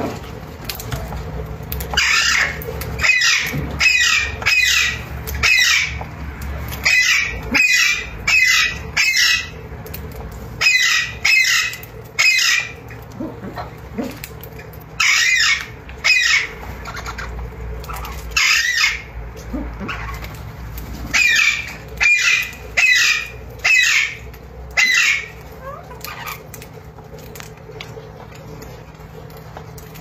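Alexandrine parakeets calling: loud, short calls repeated in runs of two to four, each under half a second, stopping about 25 seconds in, over a steady low background rumble.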